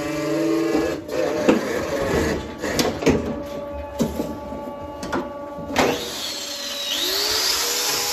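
Metal clanks and knocks from a cattle hoof-trimming chute as the cow's hind leg is lifted and strapped onto the leg rest. A steady hum sounds in the first second. Near the end a handheld angle grinder with a hoof-trimming disc spins up with a rising whine, then runs steadily.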